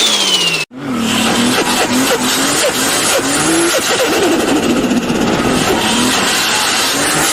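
Forced-induction car engine sounds: a high whine falls in pitch as the revs drop and is cut off under a second in. A noisier engine passage follows, with many short rising and falling pitch blips.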